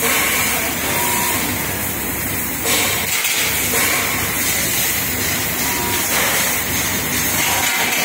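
Steady hiss-like running noise of a CNC press brake and the workshop around it, with no distinct strikes or pauses.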